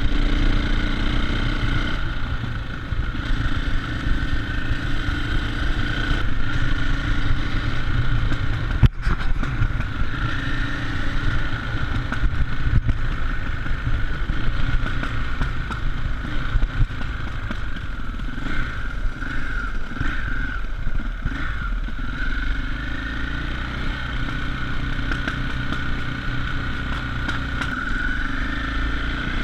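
KTM enduro dirt bike's engine running steadily as the bike is ridden, heard close up from a camera on the rider, with a single sharp click about nine seconds in.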